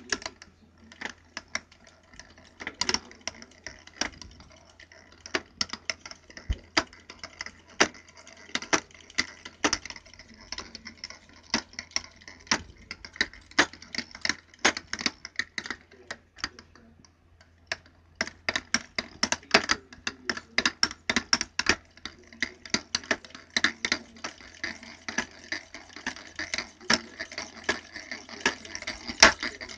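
Motorized bicycle's chain drive and engine kit making rapid, irregular clicking and clanking, with a short pause partway through. This is the clank the owner is showing as a problem with the bike.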